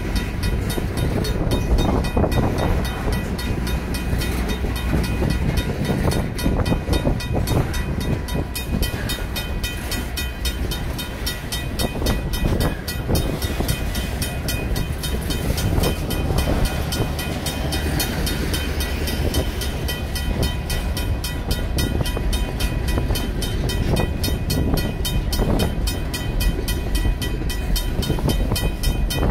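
Freight cars rolling past close by, with steady wheel rumble and clatter on the rails. A mechanical crossing bell rings throughout in fast, even strokes.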